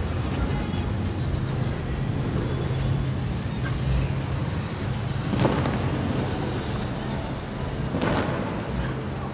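Traffic noise on a city street: a steady low engine hum from passing or idling vehicles, with two short, sharp noises about five and eight seconds in.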